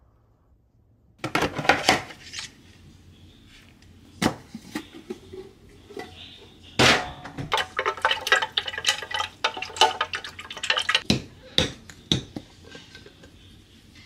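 Kitchen utensil clatter: a utensil knocking and clinking against a plastic jug of starch water and a square frying pan, a string of sharp knocks starting about a second in.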